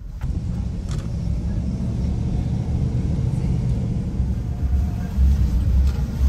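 Low rumble of a vehicle driving, engine and road noise heard from inside the cab, swelling slightly near the end.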